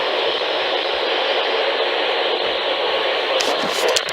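Steady static hiss from a NOAA Weather Radio receiver: dead air in the alert broadcast, with a few faint clicks near the end.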